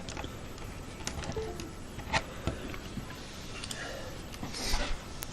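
A few light clicks and a short scraping rustle from handling a USB cable and plug being connected to a PC, with a sharper click at the very end.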